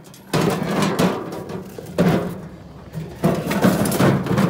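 Irregular knocks, clunks and rustling from junk being handled and carried, loudest in bursts near the start, about two seconds in, and in the last second.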